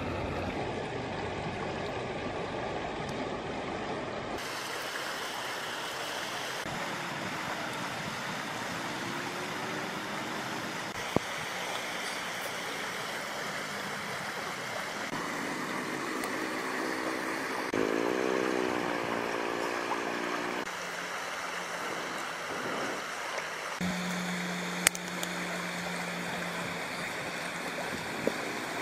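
Steady rush of a flowing river, with a few sharp knocks and a wavering pitched sound for a few seconds in the middle.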